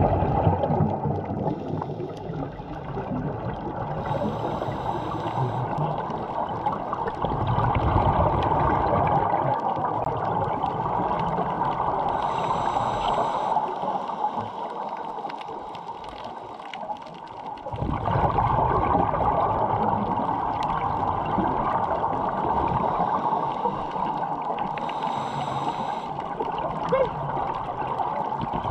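Underwater sound of a scuba diver breathing through a regulator: long gurgling, rumbling exhalations of bubbles, broken three times by a short hiss of inhalation, with steady muffled water noise throughout.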